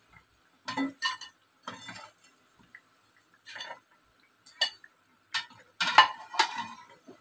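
Metal slotted spoon knocking and scraping against a non-stick frying pan in a string of separate short clatters as fried bread slices are lifted out of the oil, the loudest a little before the end.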